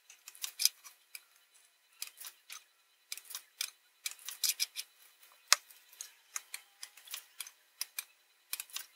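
Hand soldering of a surface-mount chip's pins with a soldering iron and solder wire: sharp, irregular ticks and crackles, in clusters that grow denser about halfway through and again near the end.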